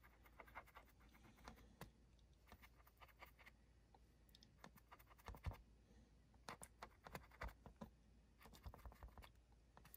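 Faint, irregular tapping and light scratching of tweezers holding a small sponge, dabbing paint onto a plastic barrel casting taped to cardboard, with a few slightly louder taps past the middle.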